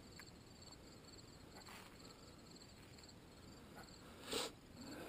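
Near silence: faint outdoor background with a few soft ticks and one short rustling noise about four seconds in.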